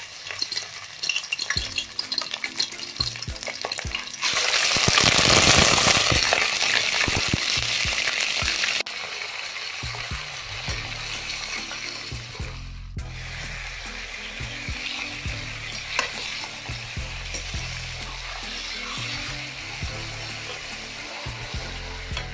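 Raw chicken pieces sizzling and crackling in very hot oil in a kadai while a steel slotted ladle turns them. The sizzling is loudest from about four to nine seconds in, then settles to a steadier, quieter sizzle.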